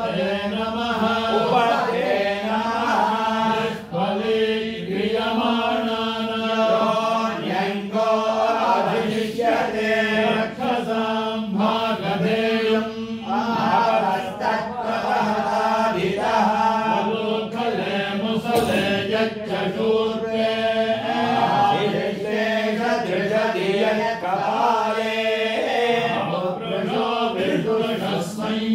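Vedic chanting (Veda ghosha): a continuous recitation of mantras held close to one steady pitch.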